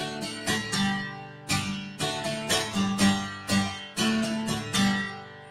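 Acoustic guitar strummed in a steady rhythm of about two chord strokes a second, with no voice over it.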